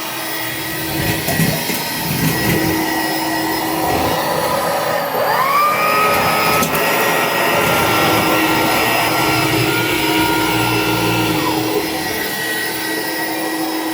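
Electrolux Discovery 3 upright vacuum cleaner running over the floor. About five seconds in, a higher whine rises in pitch and holds steady, then drops away shortly before the end.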